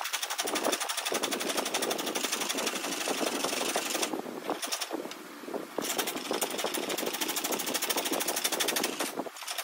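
Chisel cutting a dry-wood dowel spinning on a spring pole lathe: a fast, chattering scrape that dips briefly about five seconds in.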